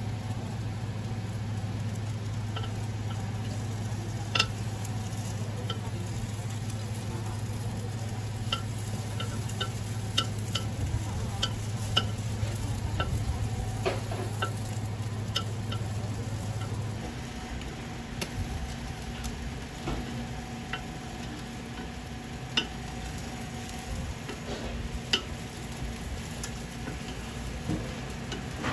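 Egg burgers frying on a multi-cup griddle pan, with scattered sharp taps and scrapes of a spatula against the metal pan, over a steady low hum that stops about two-thirds of the way through.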